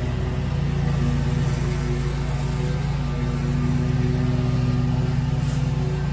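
Gravely commercial walk-behind mower running steadily, its engine held at working speed as the deck cuts long grass.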